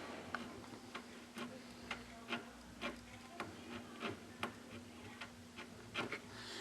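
Faint, unevenly spaced clicks, roughly two a second, over a low steady hum.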